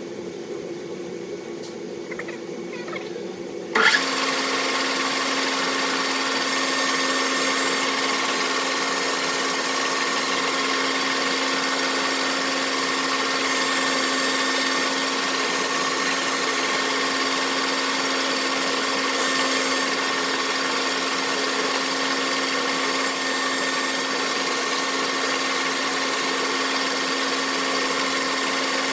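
Machine tool running steadily with a motor hum and a few steady whining tones. About four seconds in it jumps suddenly louder, then runs on evenly.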